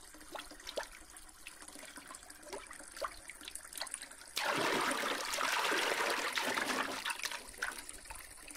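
Water from a stone fountain's two spouts trickling and splashing into the stone trough below. The first few seconds are faint, with small drips. About four seconds in, a much louder, steady splashing hiss starts abruptly and eases off near the end.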